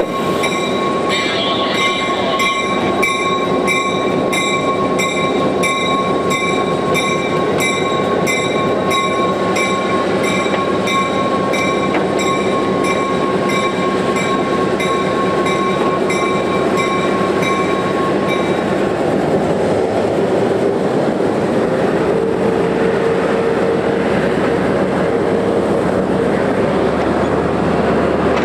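EMD SW9 switcher locomotive running and rolling along the track, its diesel engine giving a steady, loud rumble. A bell rings over it with even, repeated strokes until about 18 seconds in, then stops.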